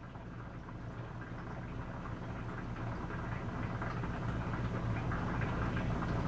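Steady low mechanical hum of running machinery, growing gradually louder.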